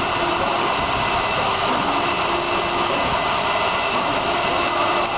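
Steady loud industrial machinery noise: an even roar with a faint hum that comes and goes.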